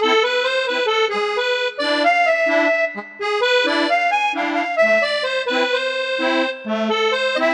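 Donner DEP-20 digital piano playing a melody over chords in one of its built-in sustained instrument voices. The notes hold at a steady level instead of fading away like a piano.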